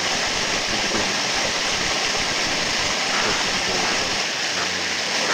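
Steady rushing of running water, an unbroken hiss.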